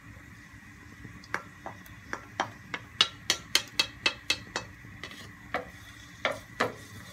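Wooden spatula knocking and scraping against a stainless steel frying pan while stirring minced garlic frying in oil. It makes a series of sharp clicks, sparse at first, then quick, about three a second, in the middle.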